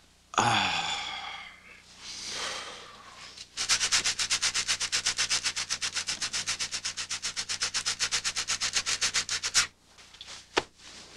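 A person scratching hard and fast: a quick, even run of rubbing strokes, about nine a second, lasting some six seconds. It is preceded by a few breathy sounds, and a single sharp click comes near the end.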